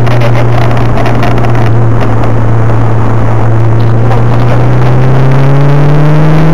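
Nissan Silvia S13's engine heard loud from inside the cabin while driving on track, holding a steady note and then climbing in pitch over the last second and a half as the car accelerates.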